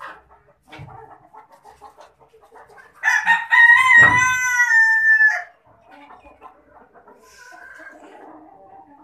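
A rooster crows once, a single call of a little over two seconds starting about three seconds in, over quieter clucking from a flock of chickens.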